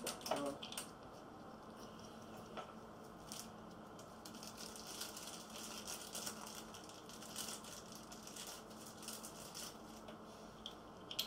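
Faint crinkling and clicking of a clear plastic bag and small plastic port caps being handled, with many small irregular crackles over a steady low hum.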